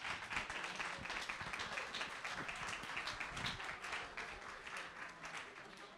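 Audience applauding, many hands clapping in a dense patter that slowly dies down near the end.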